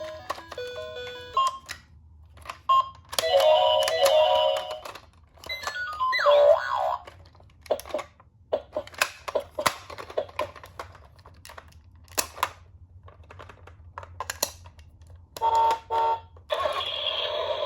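Toy ambulance minicar's electronic sound unit playing short bursts of beeping tones, with a rising glide about six seconds in, among sharp plastic clicks and taps from the toy being handled and run.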